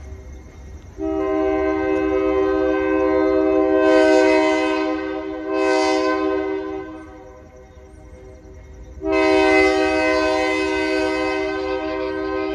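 ALCO diesel locomotive's air horn sounding a chord: one long blast of about six seconds starting a second in, then a second long blast starting about two seconds after the first ends, over a low rumble.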